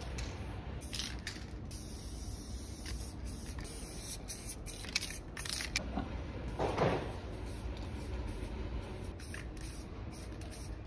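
Aerosol spray-paint can hissing in several short bursts against a wall, with a louder, duller noise partway through.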